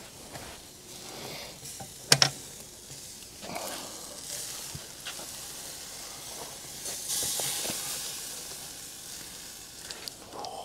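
A turkey on its rotisserie spit being lifted off a hot Kamado Joe: a sharp metal clack about two seconds in, then a hissing sizzle that swells about halfway through and fades, with a few light knocks near the end.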